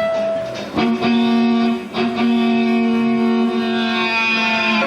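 Electric guitar imitating a big truck's air horn: long held chords that change about a second in and again at two seconds, then drop lower near the end as if the truck is going by.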